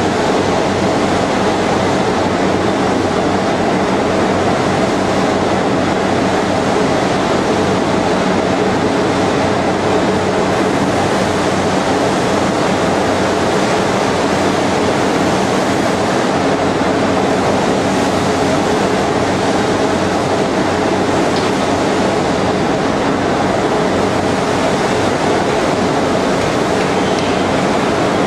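A CNC shaping lathe for porcelain insulators and its hydraulic power pack running steadily. It is a constant machine hum with several steady tones under a loud, even rush of noise, with no pauses or changes.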